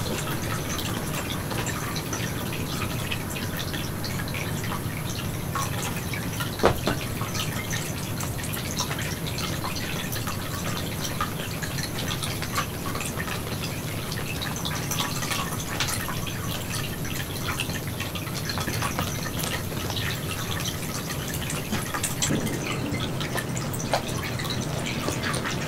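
Steady trickle of running water with scattered faint clicks, and one sharper click about seven seconds in.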